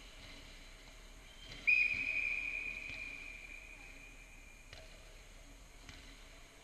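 A referee's whistle: one long, steady high-pitched blast starting about two seconds in, then fading away over about three seconds.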